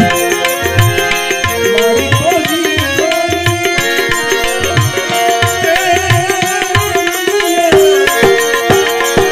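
Live male vocal singing into a microphone over a percussion accompaniment with a regular low drum beat; the voice holds long, wavering notes, one of them drawn out for several seconds in the middle.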